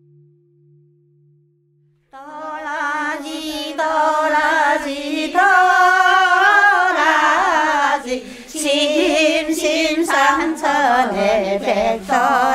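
A woman singing unaccompanied, a slow melody with wide vibrato, coming in about two seconds in. Before it, a faint steady tone fades out.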